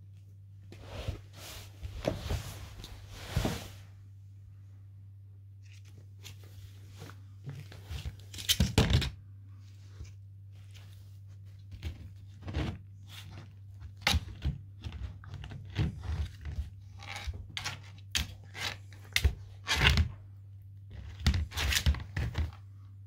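Teething rough collie puppy gnawing a big hide chew bone: irregular crunches, scrapes and knocks as the bone shifts against a wooden floor.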